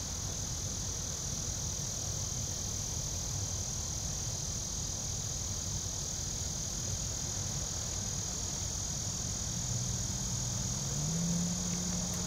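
Insects calling in a steady, even high-pitched chorus over a low rumble. Near the end a low engine-like hum rises in pitch.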